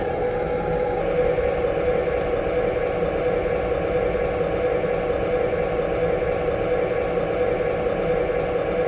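Sound system of a Lionel LionChief O-scale diesel locomotive playing its diesel engine startup sound. The sound changes about a second in, then runs on steadily.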